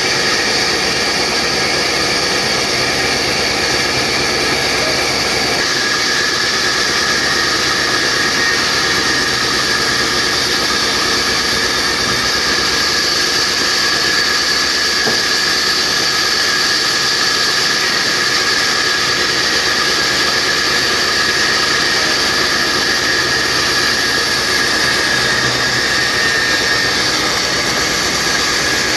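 Horizontal band sawmill running steadily: a loud, continuous machine noise with a high, even whine from the blade.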